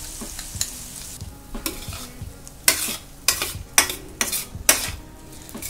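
Soaked barnyard millet (samak rice) sizzling in hot oil with fried potatoes as it is stirred in a stainless-steel pan. From about a second and a half in, a steel spoon scrapes and knocks against the pan several times.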